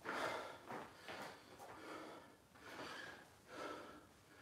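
A man's faint, short, noisy breaths, one every half second to a second, from the effort of a deep lunge exercise.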